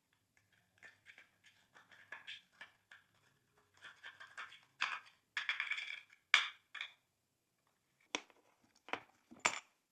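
Glossy slime being squished and mixed: a run of small wet crackles and pops, thickest and loudest around the middle, then three sharp snaps near the end.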